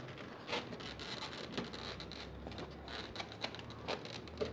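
Hands handling a plastic-bagged manual and a computer case inside a cardboard box: plastic crinkling and rustling with scattered light taps and clicks.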